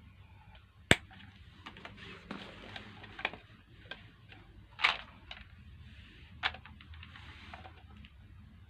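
Irregular clicks and knocks of blender parts being handled and fitted together during a repair, with one sharp click about a second in and louder knocks near the middle.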